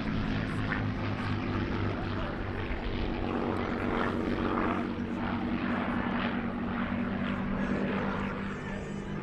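Two Supermarine Spitfire Mk IX fighters flying overhead in formation, their Rolls-Royce Merlin V12 piston engines giving a steady propeller drone that fades a little near the end.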